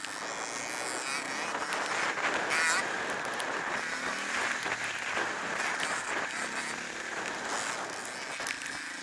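Steady rush of wind noise buffeting a camera mounted on a trail-riding dirt bike, with the bike's engine faint underneath.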